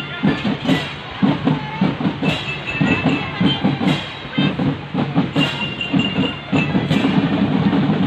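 Children's marching drum band playing: snare and bass drums beat a steady, rhythmic pattern, with bright bell-lyra notes ringing above it in short runs.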